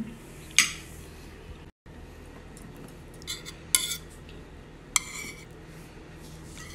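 Spoon clinking against a plate during a meal: four or five sharp separate clinks over a low steady hum, with a brief dropout about two seconds in.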